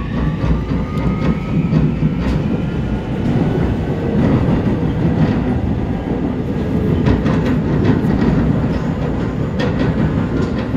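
Seoul Subway Line 2 train running through a tunnel: a steady, loud rumble with scattered clicks of the wheels over the track.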